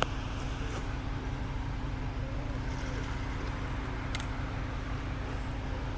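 Steady low outdoor rumble with a light click about four seconds in.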